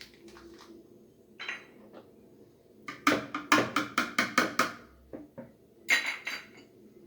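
A utensil clinking rhythmically against a mixing bowl while a cake batter is stirred: a quick run of about five strokes a second for a couple of seconds, then one more clatter near the end.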